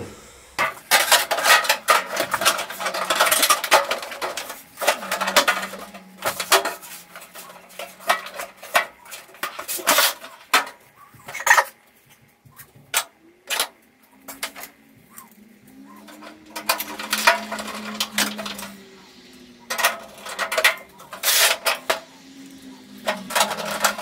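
A microwave's sheet-metal outer cover being slid back over the chassis and fastened down: irregular metallic clanks, rattles and scrapes, with a few sharp knocks in the middle.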